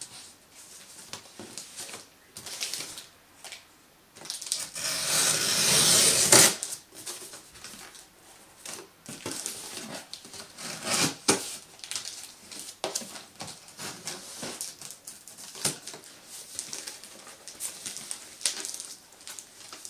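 Scissors cutting through packing tape and the cardboard of a shipping box: irregular snips, clicks and scratchy scraping. About five seconds in, a longer, louder scraping stretch grows and then stops suddenly.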